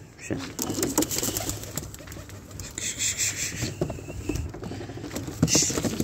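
Domestic pigeons cooing in a loft, with scattered clicks and rustling throughout.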